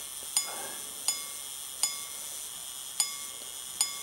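Quarter-repeater pocket watch striking the hour on its gong: single ringing strikes a little under one a second, each leaving a lingering metallic ring. The repeater is miscounting, striking ten instead of eight and never sounding the quarters, a sign that the mechanism needs adjustment.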